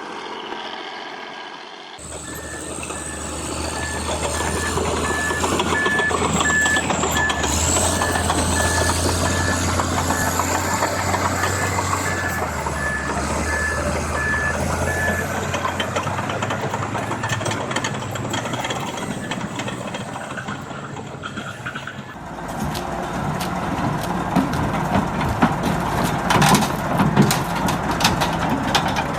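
Heavy machine's engine running with a reversing alarm beeping about once a second through the first half. After a cut, engine noise with several sharp knocks and clanks near the end.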